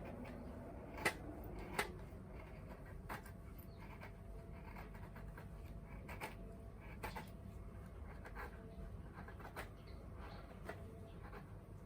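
Small wood fire in a compact tabletop fire stand crackling, with sharp pops at irregular intervals, two louder ones about a second and two seconds in, over a low steady rumble.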